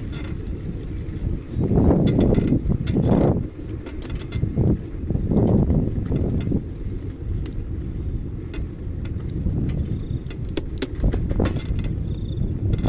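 Wind buffeting a handlebar-mounted microphone while riding, a low uneven rush that swells several times, with scattered light clicks and rattles.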